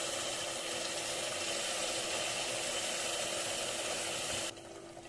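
Hot water pouring from a kettle into a stainless steel pot of red lentils: a steady splashing pour that stops abruptly about four and a half seconds in.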